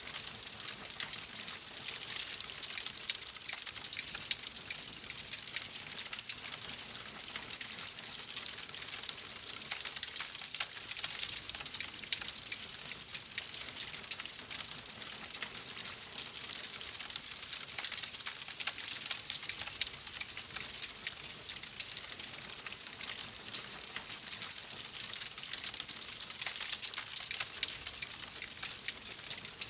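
Steady rain mixed with a crackling wood fire: a continuous high hiss dense with fine ticks.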